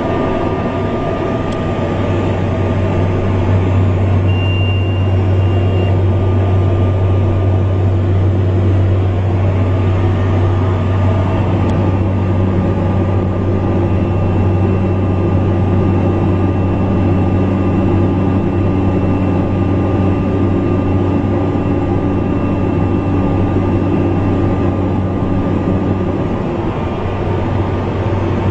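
Single-engine light aircraft's piston engine and propeller droning steadily, heard from inside the cockpit, a little louder from about two seconds in. A thin, high steady tone sounds for about two seconds around four seconds in, and again faintly later on.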